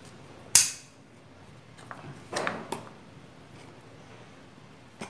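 Handling noises on a wooden table: a sharp knock about half a second in, then a rougher knock with a small tick a couple of seconds later.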